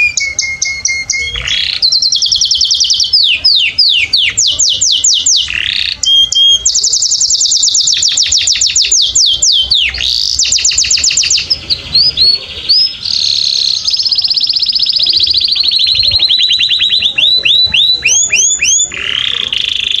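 Canary singing a long, unbroken song of rapid trills and sweeping whistled notes, switching from one rolled phrase to the next every second or two, with a few held whistles in between.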